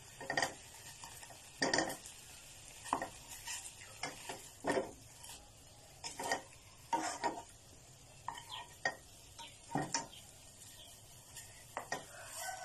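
A spatula scraping and knocking against a nonstick frying pan, in short irregular strokes every half second to a second, as pieces of pork leg are turned and seared, over a faint sizzle.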